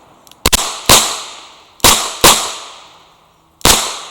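Revolver fired in a timed competition string: five shots. There are two quick pairs about half a second apart, then a fifth shot near the end, each followed by a short ringing echo.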